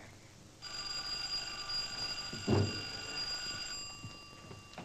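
Telephone bell ringing steadily for about three seconds, starting just under a second in. A short low thump comes partway through the ringing.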